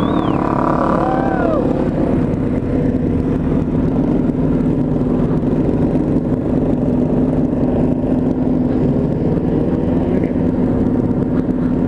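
Motorcycle engine cruising at a steady speed, heard from on board with wind rushing past, the engine note holding steady. A few short whistling glides sound in the first couple of seconds.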